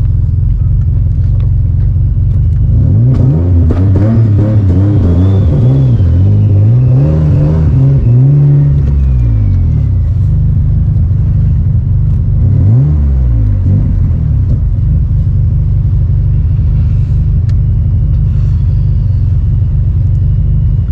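Single-turbo VQ V6 engine of an Infiniti G35, heard from inside the cabin: a steady low running note, with the revs rising and falling several times in quick succession from about three seconds in to about ten seconds, and once more a little later.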